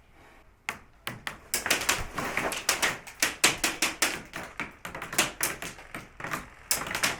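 Airsoft guns firing in a rapid, irregular string of sharp snapping shots, several a second, starting abruptly under a second in.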